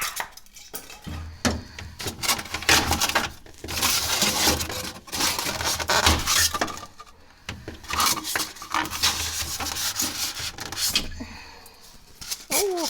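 Plastic wrapping being pulled and peeled off a new refrigerator, in irregular spells of rustling and rubbing.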